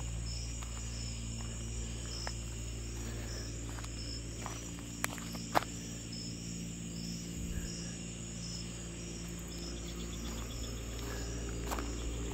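Crickets chirping, short high chirps repeating over a steady low hum, with two sharp clicks about five seconds in.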